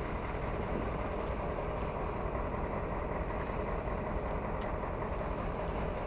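Steady engine noise, an even running hum that does not change.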